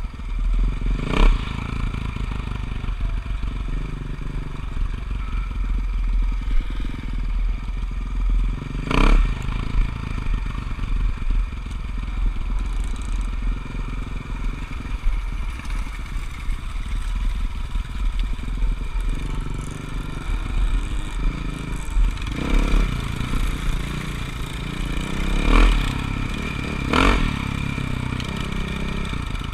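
Motocross dirt bike engine running and revving while riding over rough ground, with a few sharp knocks and clatters.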